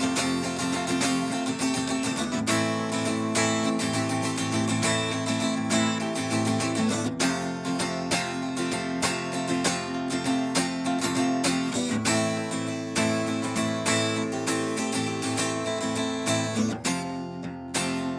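Steel-string acoustic guitar strummed in a steady rhythm, the chord changing every few seconds.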